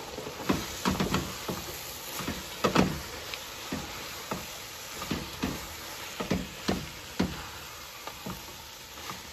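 Spatula stirring shredded chicken with tomato and onion in a nonstick frying pan: irregular scrapes and knocks against the pan, about one or two a second, over a low steady sizzle.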